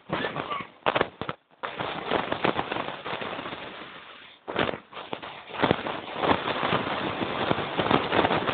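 Sleds running over a rutted, snowy track: a rough, irregular scraping and crackling with many sharp knocks. It breaks off briefly about a second in and again near the middle.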